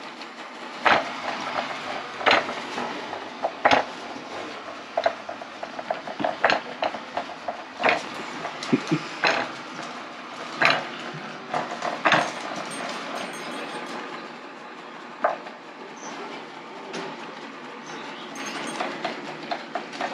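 Lefant M210B robot vacuum running with a low steady hum, with a sharp knock roughly every second and a half through the first half, then one more a few seconds later.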